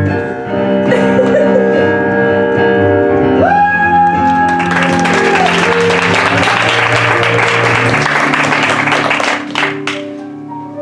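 Live piano accompaniment playing sustained chords, with a long held note a few seconds in; then audience applause from about four and a half seconds in, fading away near the end while the piano carries on.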